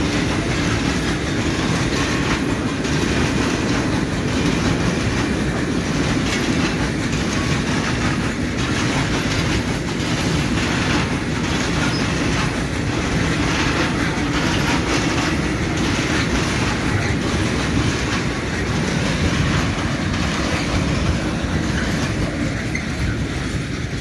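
Freight train of open coal wagons (węglarki) rolling past at speed: a steady rumble of steel wheels on rail with a repeating clickety-clack as the wheelsets pass over the joints. It eases off just at the end as the last wagon goes by.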